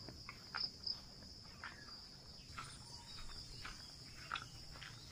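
Steady high-pitched insect chirring, with soft, irregular footsteps through grass.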